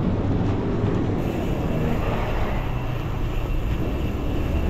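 Steady wind and road rumble on the microphone while riding a mountain bike on a paved road.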